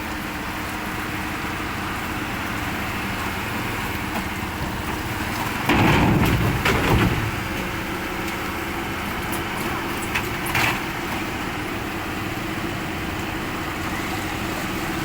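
Excavator engine running steadily, with a louder, noisy burst lasting about a second and a half near the middle and two short knocks a few seconds later.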